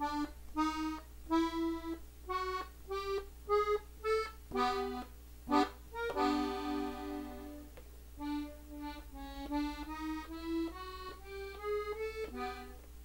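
Gabbanelli button accordion played slowly on the treble buttons, one short separate note after another, some as pairs. The notes climb step by step in two runs, with a longer held pair of notes about six seconds in.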